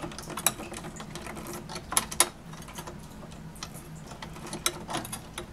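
Light, scattered clicks and taps of a hand screwdriver backing nylon screws out of a plastic retaining bar on an ozone generator's plate rack, with two sharper clicks close together about two seconds in.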